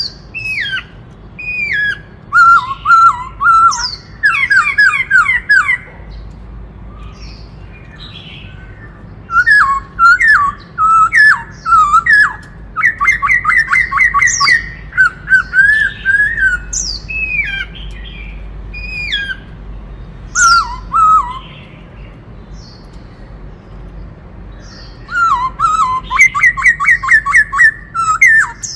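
White-cheeked laughingthrush singing in bursts of quick, jumping whistled notes, with short pauses between the phrases.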